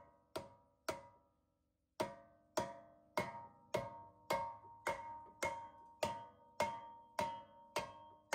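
Soft mallet striking a rusted-on front brake rotor of a Jeep Grand Cherokee to knock it loose from the hub, the rotor ringing after each blow. Two blows, a pause of about a second, then about a dozen steady blows roughly every 0.6 s.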